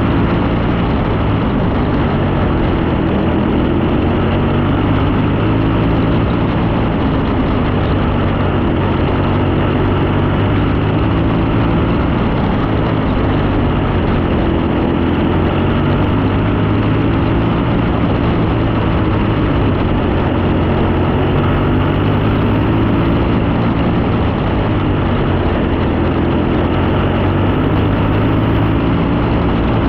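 Onboard engine of a D1 JRX dirt race car running at racing speed, its pitch rising and falling every six seconds or so as it goes on and off the throttle around the oval.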